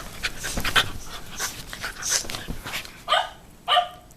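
A Shiba Inu and a puppy play-fighting: scuffling and nipping sounds, then two short, sharp barks near the end.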